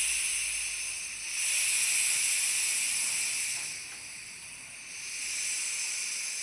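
Compressed air hissing out of a small air compressor's pressure regulator as its knob is turned down toward 70 PSI, the regulator venting pressure. The hiss swells and fades three times.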